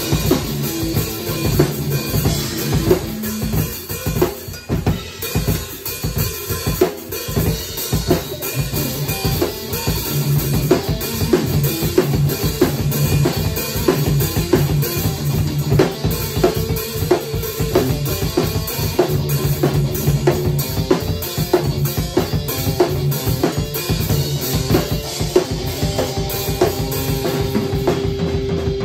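Drum kit and electric guitar playing together in a rock jam: a steady beat of bass drum, snare and cymbals under held and repeated guitar notes.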